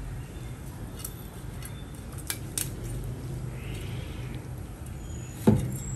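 Kitchen utensils and dishes clinking a few times over a steady low hum, with one heavy thump about five and a half seconds in.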